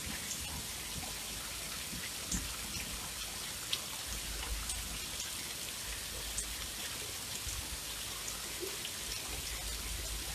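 Steady rain: an even hiss of falling rain with single louder drops tapping now and then.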